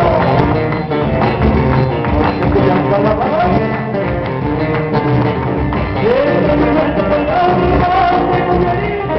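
Live band music in a Latin style: a voice singing a melody over guitar and a steady beat.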